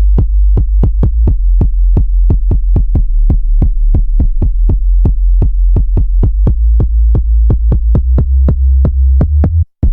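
Electronic background music: a steady, quick kick-drum beat over a deep bass drone. It cuts out briefly near the end.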